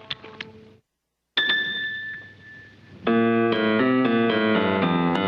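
Quick run of ticks, a sudden cut to silence, a ringing high note, then from about three seconds in, loud piano chords changing every half second or so, from a cartoon soundtrack.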